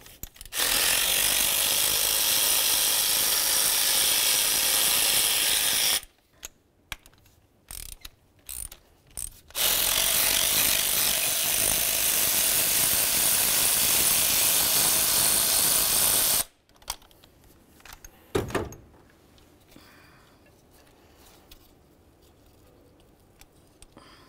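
Power ratchet running out the hidden intake manifold bolts on a GM 3.8 L engine, in two steady runs of about six and seven seconds with a few short clicks in between, one run per bolt. A single knock follows a couple of seconds after the second run.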